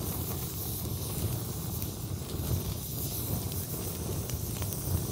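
Campfire of dry beech sticks burning, a steady low rush of flame with a few faint crackles.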